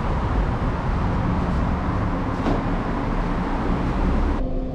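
Steady traffic noise in a parking garage. About four and a half seconds in it cuts off abruptly to the quieter inside of an elevator cab with a steady low hum.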